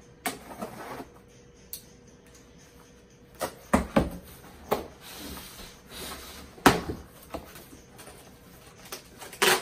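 Cardboard box flaps and packing being handled and pulled open: rustling and scraping of cardboard with several sharp knocks, the loudest about four seconds in and again near seven seconds.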